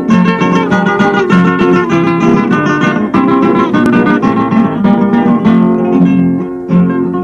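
Instrumental passage of a recorded Latin American popular song: plucked acoustic guitars playing a quick melody over a steady bass line.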